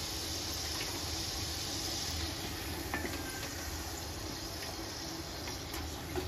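Potato wedges deep-frying in hot oil in a kadhai: a steady sizzle, with a few faint clicks of a steel slotted skimmer against the pan.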